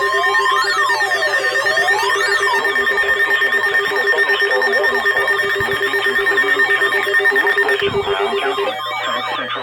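Emergency alert attention tones: several electronic tones layered together, a steady tone under a wail sweeping up and down about every second and a half, which gives way after a few seconds to a fast repeating warble. They announce a severe thunderstorm warning.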